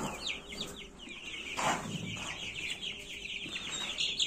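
A crowd of young white broiler chicks peeping without pause, a dense run of short, high, falling peeps. A soft thump comes about a second and a half in.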